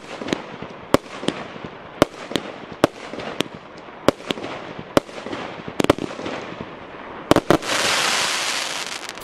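A 49-shot, 30 mm consumer firework battery (cake) firing shot after shot, with sharp bangs about every half second, often in close pairs. Near the end a quick volley of loud bangs is followed by about a second and a half of dense loud rushing noise from the final glittering bursts.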